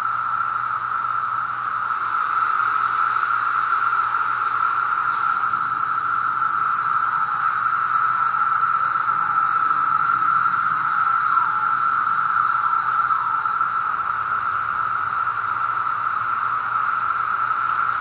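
Dense chorus of periodical cicadas: a loud, steady, unbroken drone, with a few single calls falling in pitch heard through it. A faint rapid ticking, about four a second, runs high above the drone for most of the first two-thirds.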